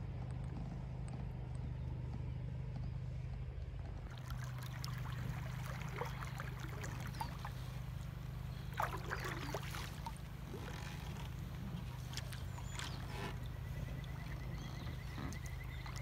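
Water sloshing and gurgling around a kayak, with scattered bird calls and a fast, even trill near the end.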